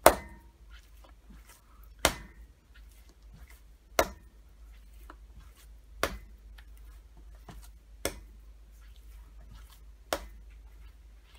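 A ball of wet, 75%-hydration pizza dough slapped down onto a stone countertop and folded over onto itself, six slaps about two seconds apart, the first the loudest.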